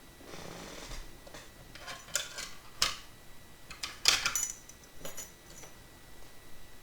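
Sharp metallic clicks and clinks of a dimple lock, its key and metal tools being handled, loudest about four seconds in.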